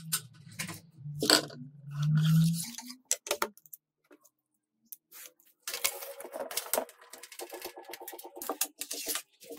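Sharp metallic clicks and clinks from screws, a screwdriver and steel panels of a computer case being handled. A low hum sounds during the first few seconds, and a pulsing tone runs through the second half.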